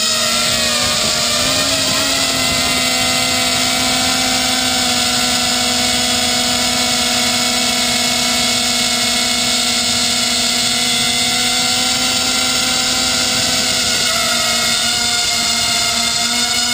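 Whine of a small FPV quadcopter's four brushless motors (1806 2400Kv) and propellers in flight, picked up by the camera on the frame. A steady, loud whine with a rushing hiss; the pitch wavers briefly about a second in and shifts slightly near the end as the throttle changes.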